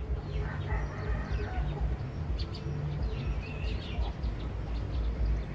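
Birds chirping and calling outdoors, with many short high calls throughout, over a steady low rumble.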